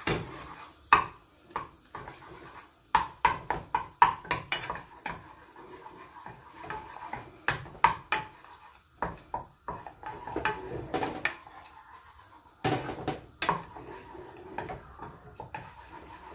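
Wooden spoon stirring melted butter and flour in a nonstick saucepan, scraping and knocking irregularly against the pan's bottom and sides as the roux for a béchamel is worked.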